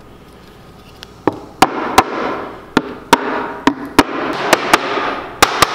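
Claw hammer tapping on oriented strand board (OSB), about a dozen sharp, irregularly spaced strikes starting about a second in. The taps drive glued tongues into slots to seat the joint.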